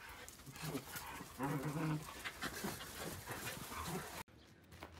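Several excited dogs crowding to be petted, with short whines and panting over scuffling paws on dirt. The sound cuts off suddenly about four seconds in.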